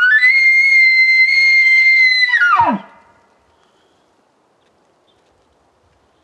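Bull elk bugling: a high, steady whistle held for about two and a half seconds that then drops sharply into a low grunt and stops.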